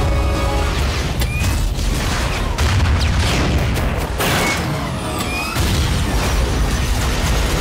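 Action-film sound effects in a trailer mix: a dense run of booms, impacts and crashes with a few short whooshing glides, over loud music with heavy bass.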